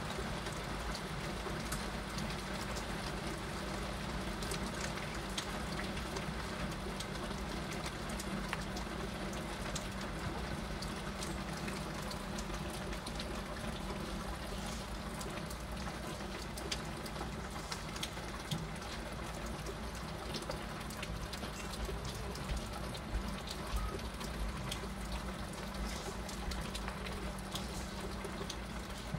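Heavy rain falling steadily as an even hiss, with many sharp taps of single drops striking close by.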